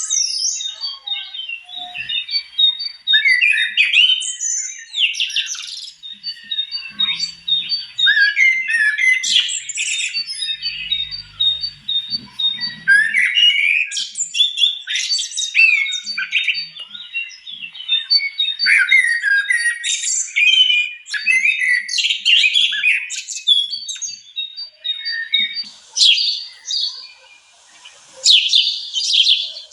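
Several birds chirping and calling over one another in a dense chorus of short chirps and trills, one of them repeating a steady high note over and over.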